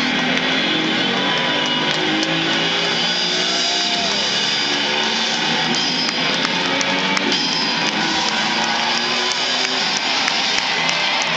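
Guitar-driven rock music from a stadium's public-address speakers, loud and steady, with scattered sharp clicks over it.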